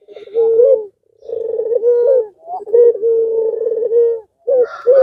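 Caged 'puter pelung' ringneck dove cooing over and over: a run of deep, drawn-out coos broken by short pauses, some ending in a quick upward flick. About three seconds in comes one long, even coo.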